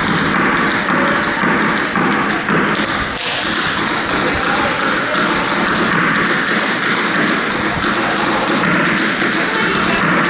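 Tap shoes striking a wooden floor in quick rhythmic runs of taps.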